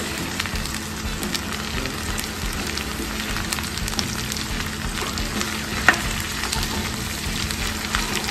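Shredded cabbage, carrot, capsicum and onion sizzling in hot oil in a nonstick pan while a spatula stirs and tosses them, with scattered clicks and scrapes of the spatula against the pan and one sharper click about two-thirds of the way through.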